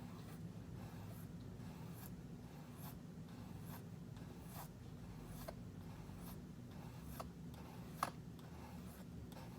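Pocket-knife blade stroked across an oil stone: short, faint scraping strokes, a little over one a second, over a steady low hum.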